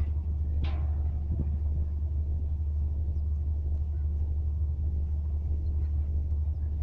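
A steady low rumble, with two short faint sounds in the first second.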